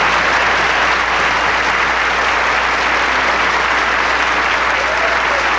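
Large audience applauding steadily, greeting a performer who has just been introduced.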